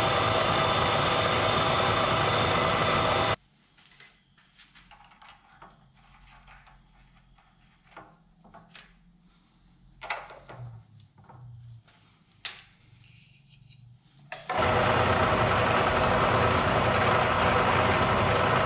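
Bridgeport milling machine's spindle running steadily while a drill bores out a broken stud in a cast turbo manifold. It stops abruptly about three seconds in. A stretch of quiet follows with scattered small metallic clicks and knocks as the drill chuck is worked to change to a larger bit. Then the spindle starts up again suddenly and drilling resumes.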